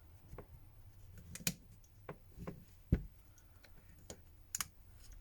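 Irregular clicks and taps of a plastic opening tool prying at a smartphone's plastic frame. Sharp clicks come about a second and a half in and again near the end, with a duller knock about three seconds in.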